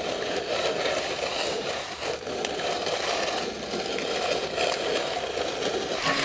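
Hand-pushed two-wheeled metal corn seeder rolling over dry sandy soil: a steady scraping rattle with many small clicks from the frame and blade working through the dirt.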